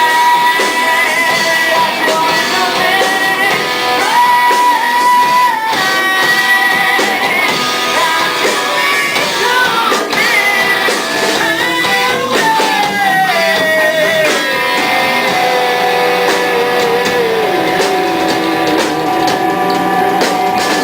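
Rock music with guitars and a held melody line that, in the second half, slides slowly down in pitch.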